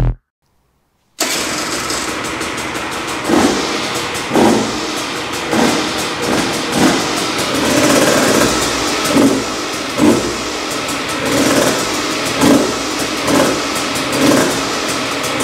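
A KTM 150 EXC TBI's single-cylinder two-stroke engine runs at idle, coming in abruptly about a second in. Short throttle blips swell its sound roughly once a second.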